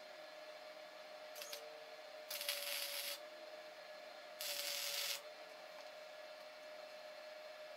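Arc welding tacks on steel brackets: a brief crackle of the arc, then two tack welds, each a sizzling burst of under a second. A steady hum runs underneath.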